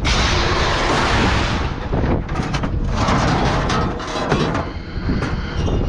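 Scrap metal crashing and clattering as it is dumped and handled at a scrapyard: a sudden loud crash at the start, a second surge about three seconds in, and many sharp metallic knocks between.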